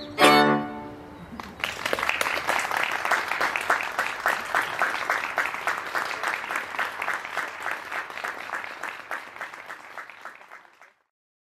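Two violins and a piano end on a final chord. About a second and a half in, applause begins and runs on, dense clapping that fades away just before the end.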